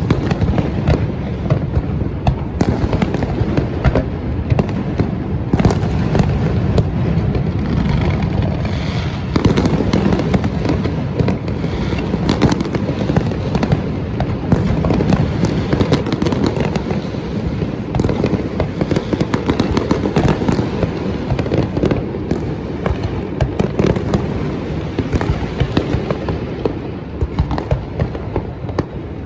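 Fireworks display: a continuous barrage of overlapping bangs, booms and crackling, with many sharp reports following one another without a break.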